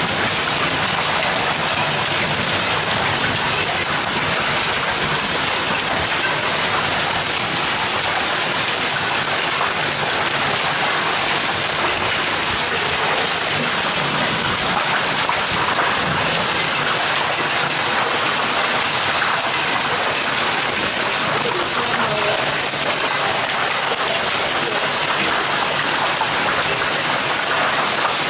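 Heavy downpour of a thunderstorm drumming on roofs and paving, a steady dense hiss of rain with no letup.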